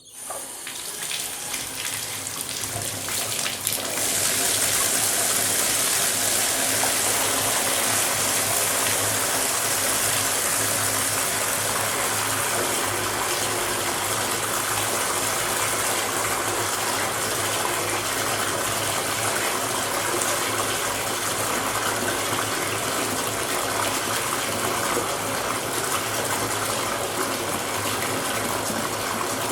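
Tap water pouring into a bathtub as it fills, a steady gushing splash. It starts from silence and builds over the first four seconds or so, then runs on evenly.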